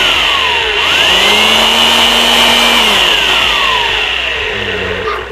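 Jakmister 600 W electric handheld air blower running at full speed, a loud rushing whine with a steady high tone, its pitch rising and falling twice. It drops away just before the end.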